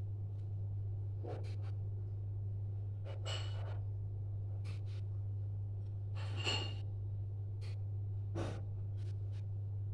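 A steady low hum, with faint scattered clicks and two short puffs of noise, about three and six and a half seconds in.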